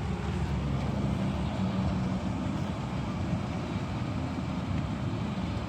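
Steady road and engine rumble inside a moving car, with rain noise over it.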